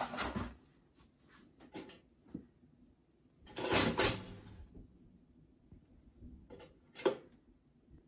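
Pop-up toaster's lever pushed down with a loud metallic clack a little under four seconds in, followed by a short sharp click near the end, among small handling noises.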